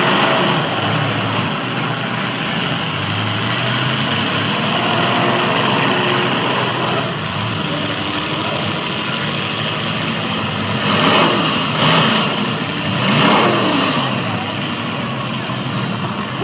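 Several demolition derby cars' engines running together, with engines revving up and down in three louder surges about two-thirds of the way through.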